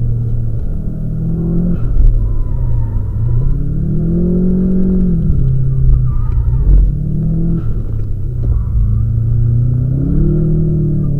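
Subaru flat-four engine, heard from on board, revving up and easing off as the car is driven through corners on a wet track: its pitch climbs about three seconds in, drops back a couple of seconds later, and climbs again near the end, over a low rumble.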